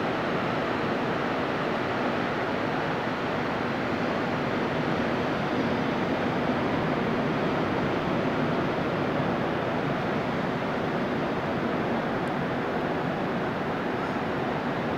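Steady roar of ocean surf breaking and washing along the shore: a constant, even hiss and rumble.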